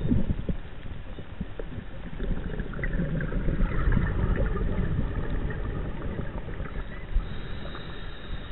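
Muffled underwater rumble picked up by a diver's chest-mounted camera in its housing. Bubbling and crackling rises over it from about three to five seconds in.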